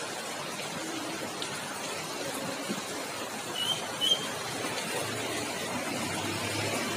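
Steady hiss of heavy rain falling on a wet road, with two short high squeaks a little past the middle and a brief louder knock just after them.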